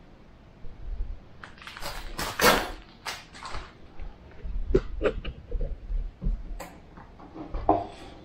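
Handling noise from recording gear being moved about and set down on a concrete ledge: an irregular run of clicks, knocks and short rustles, starting about a second in.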